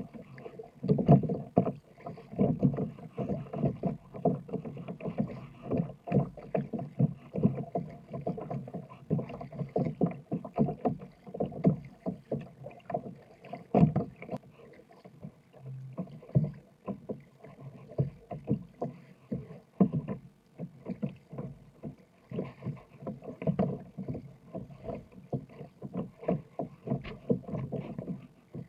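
Double-bladed kayak paddle dipping and pulling through choppy water, with irregular splashes and water slapping against the hull of a sit-on-top kayak. One louder splash comes about halfway through.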